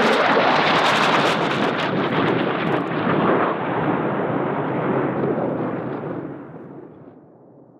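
A deep rumbling boom, like thunder, from an intro sound effect: it hits full strength at once, rumbles on with crackles for several seconds, and fades out over the last two seconds.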